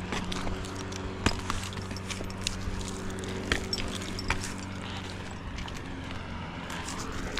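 An engine running at a steady idle, with scattered sharp clicks and knocks over it, the loudest about a second in and again near the middle.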